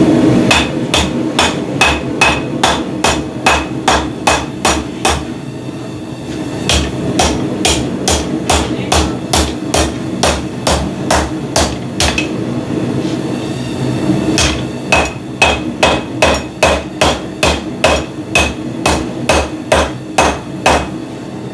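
Hand hammer striking a mild-steel scroll bar on an anvil to flatten it, about three blows a second, each with a short metallic ring. The blows come in three runs with brief pauses between them. The steel is cooling toward the end of its working heat.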